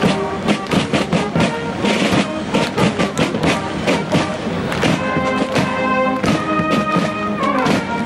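Military band playing a march: a steady drum beat under brass, with long held chords building up in the second half.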